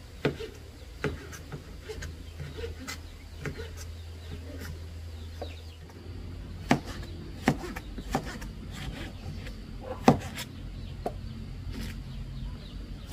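Scattered sharp knocks and taps at irregular spacing, roughly one every second, over a low steady hum.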